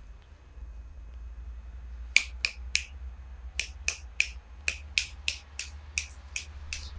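American Staffordshire Terrier puppies giving a run of short, high squeaks, about three a second, starting about two seconds in.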